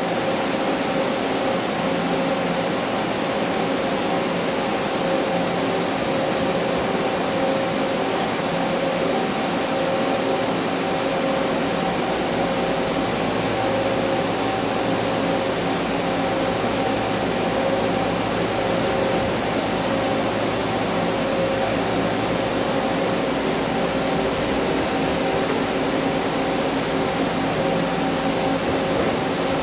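Doosan PUMA TT1800SY twin-spindle CNC turning center running: a steady mechanical hum with several constant tones over an even hiss.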